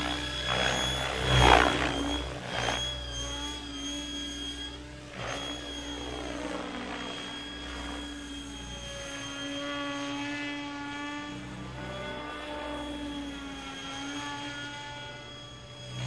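Electric Mikado Logo 600 RC helicopter in flight: steady whine of the electric motor and drivetrain with the whoosh of the main rotor blades, loudest in the first couple of seconds and then fainter and steady as it climbs away.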